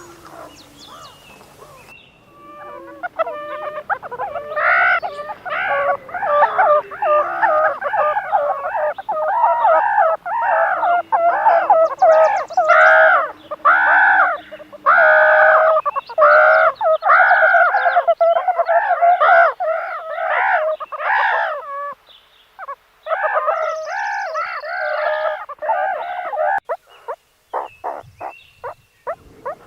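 Meerkat giving a long run of repeated rising-and-falling calls, about two a second, with a short break near the middle and a few sharp clicks near the end.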